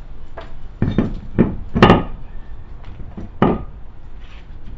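A run of dull knocks and bumps as a tire and wheel are wiggled and turned by hand onto the hub studs. The loudest knock comes about two seconds in, with smaller ones before and after.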